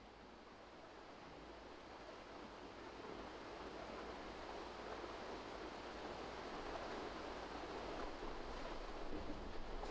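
Steady rushing noise, like running water or wind, growing gradually louder.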